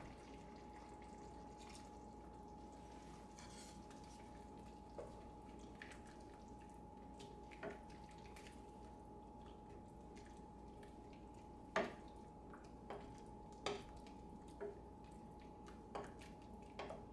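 Wooden spoon stirring a simmering stew in a stainless steel pot, knocking against the pot a handful of short, sharp times, loudest about twelve seconds in, over a faint liquid simmer.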